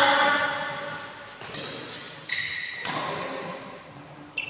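Badminton rally in a large, echoing hall: sharp racket hits on the shuttlecock a second or so apart, with a couple of short high squeaks in between.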